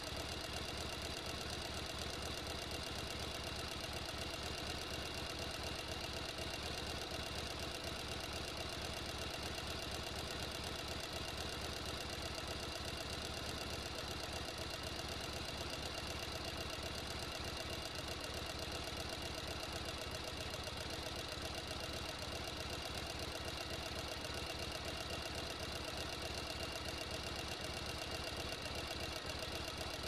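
Industrial sewing machine running continuously at a steady speed: a fast, even mechanical chatter with a steady high whine over it.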